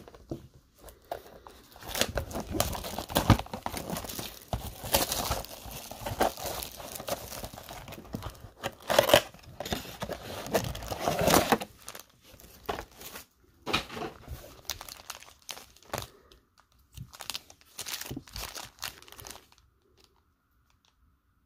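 Plastic shrink-wrap being torn and crinkled off a sealed trading card box, dense and crackly at first. It is followed by scattered rustles and clicks as the box is opened and the foil card packs are handled, which die away near the end.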